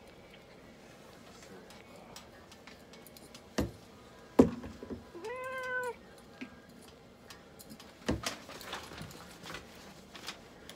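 A long-haired mixed-breed cat meows once, a short, fairly level call about halfway through. Several sharp knocks come around it; the loudest lands just before the meow.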